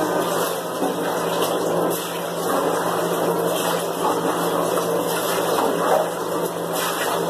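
Water running from a bathtub tap, a steady rush with a low hum under it.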